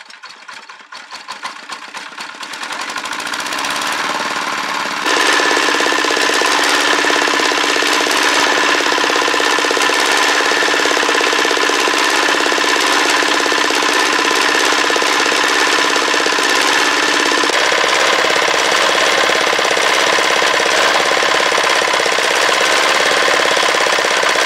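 Rebuilt 18 HP Chinese hand-tractor diesel engine starting after hand-cranking, its first test run. Its beats come quicker and louder over the first few seconds as it picks up speed, it gets louder again about five seconds in, and it then runs steadily.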